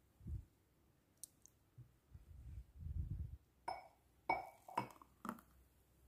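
Four sharp clinks of glassware, each with a brief ring, coming about half a second apart in the second half. They follow a few soft, dull thuds.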